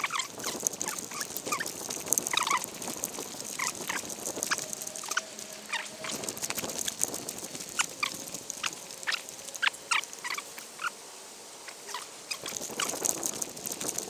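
Footsteps on a dirt woodland trail, with leaves and brush rustling against the walker: an uneven run of short crunches and swishes that eases for a moment about twelve seconds in.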